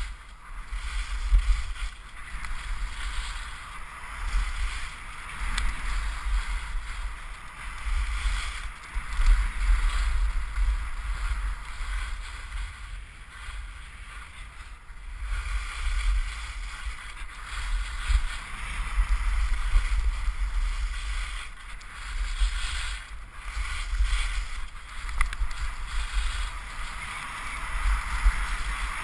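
Skis sliding down a groomed piste: snow hissing and scraping under the skis, swelling and fading every few seconds with the turns, over a low rumble of wind on the microphone.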